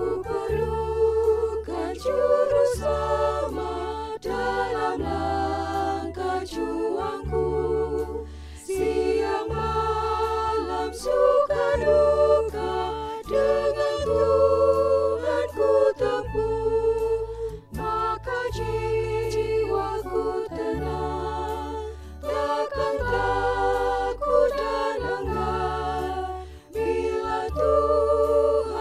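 Women's church choir singing a hymn in several vocal parts, with a low sustained bass underneath that shifts with each chord and short pauses between phrases.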